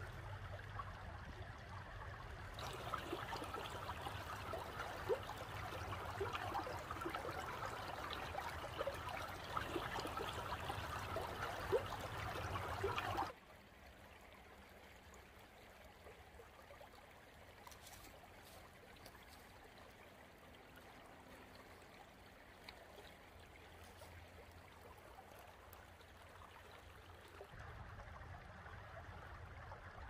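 Shallow creek water running over stones, a steady babbling trickle. About 13 seconds in it drops suddenly to a softer, quieter flow.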